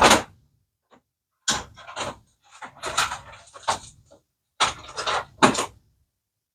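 Irregular clattering and knocks of objects being handled and moved about, in three short bursts, stopping abruptly about six seconds in.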